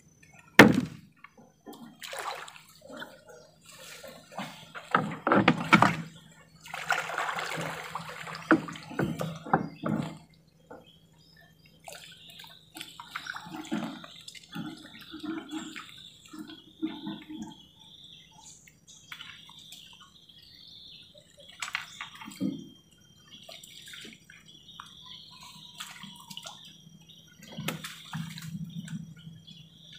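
Water splashing and dripping as a wet nylon gill net is pulled and spread out from a small wooden boat, with a few sharp knocks against the hull.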